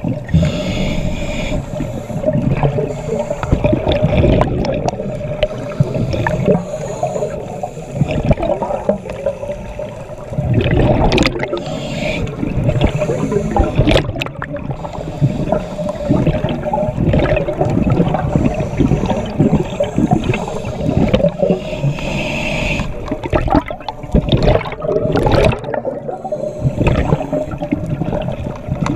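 Scuba regulator breathing recorded underwater: irregular bubbling and gurgling of exhaled air, over a low rumble and a steady hum.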